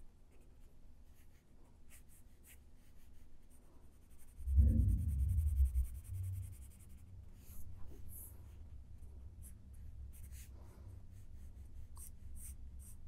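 Pencil drawing on paper: faint scratching strokes, with a quicker run of short strokes near the end. About four and a half seconds in, a louder low bump that lasts about a second and a half.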